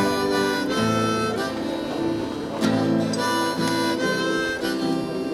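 Harmonica in a neck rack playing held notes over a strummed acoustic guitar, both played by one musician.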